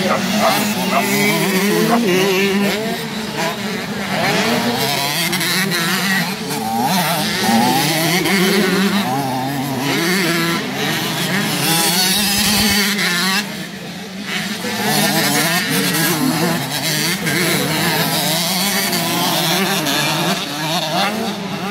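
125 cc motocross bikes racing past, their engines revving up and down through the corner, with several bikes heard at once. There is a brief lull about two-thirds of the way in.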